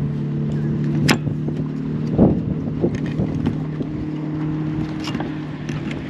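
A steady motor hum that stops shortly before the end, with scattered light metallic clicks and a sharper knock about a second in.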